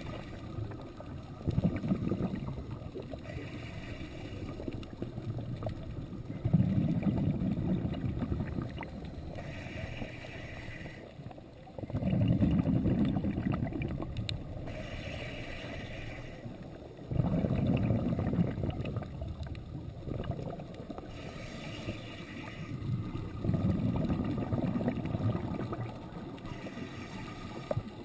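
Scuba diver breathing through a regulator underwater: a short hiss of inhaling, then a low bubbling rumble of exhaled bubbles lasting two to three seconds, repeating about every five seconds.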